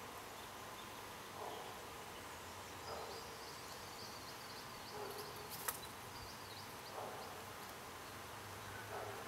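Faint outdoor natural ambience: a short call repeats about every two seconds, a quick run of high chirps sounds in the middle, and one sharp tick follows just after.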